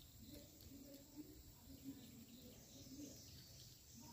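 Faint, soft sounds of a small puppy eating omelette from a stainless-steel bowl: quiet chewing and mouthing that recur about twice a second.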